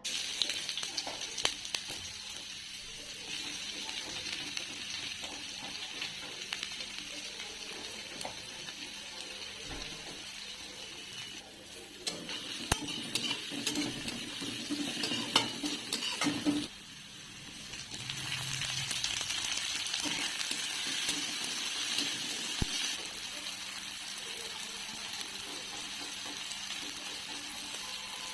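Food frying in a pan, sizzling steadily, with a spatula clinking and scraping against the pan as it is stirred. The sizzle twice drops away suddenly for a moment.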